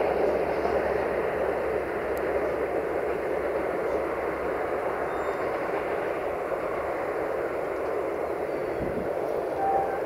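Passenger train's coaches rolling away on the track, a steady rumble of wheels on rail that fades slightly as the train recedes.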